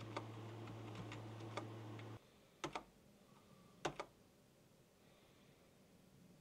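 A handful of separate key presses on a computer keyboard, short clicks, the loudest three between about two and a half and four seconds in. A low steady hum runs under the first two seconds and then cuts off.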